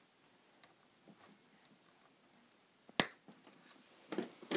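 Faint handling ticks, then a single sharp snap about three seconds in, from hand work on parts of the receiver's chassis, followed by brief rustling and handling noise near the end.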